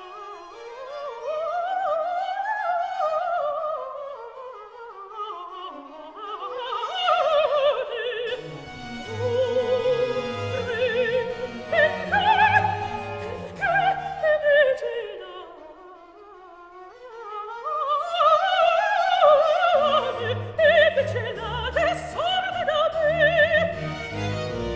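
Operatic soprano singing a baroque opera aria in long, gliding runs, accompanied by orchestra whose lower parts come in beneath the voice about eight seconds in.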